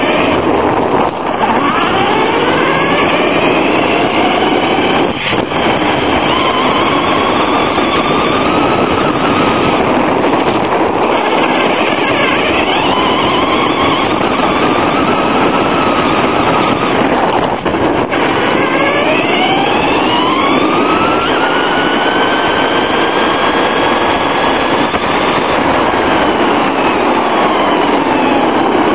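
Traxxas Stampede VXL's brushless motor and drivetrain, recorded from a camera mounted on the truck itself: a loud, rough rush of gear and tyre noise with a motor whine that climbs and falls in pitch several times as the throttle is worked, with a long climb about two-thirds of the way in.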